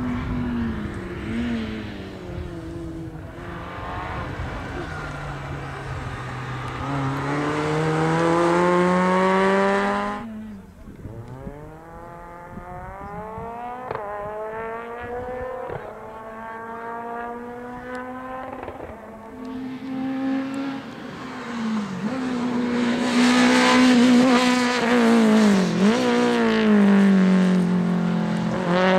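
Rally car engine revving hard on a gravel stage, its pitch climbing and then stepping down again and again as it shifts gears. It is loudest around a third of the way in, then falls away suddenly, and builds to a second loud spell near the end.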